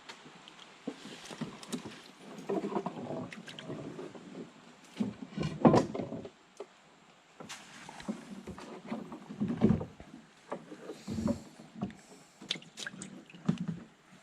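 Irregular knocks and clatter of things being handled in a small wooden fishing boat, the loudest knock about six seconds in.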